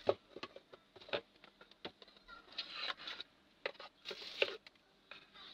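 Paper product box being handled on a tabletop: a string of light knocks and taps, the sharpest right at the start, with short rustling scrapes about two and a half and four seconds in.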